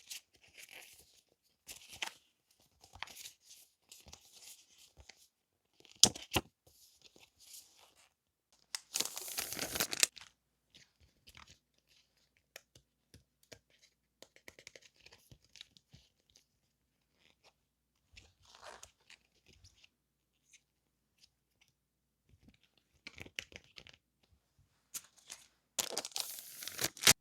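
Paper stationery and packaging being handled close up: scattered rustling and crinkling with a few sharp clicks, and a longer rip about nine seconds in and again near the end.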